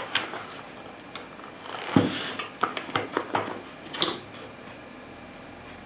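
Federal 20-gauge Hi-Brass shotshells being handled and drawn out of their cardboard box. There is a knock about two seconds in, then several light clicks as the shells' metal heads tap together, with a last click about four seconds in.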